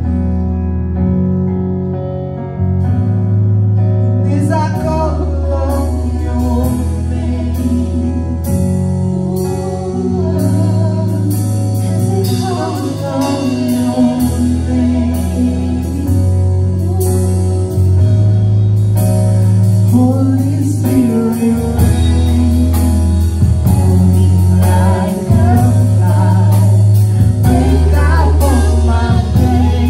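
Worship song: voices singing over a band with sustained bass notes, with percussion coming in about three seconds in.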